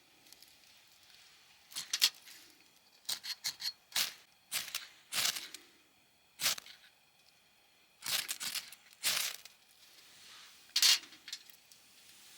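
A series of short, sharp crinkling and tearing noises in irregular clusters, about a dozen in all, the loudest about two seconds in and near the end.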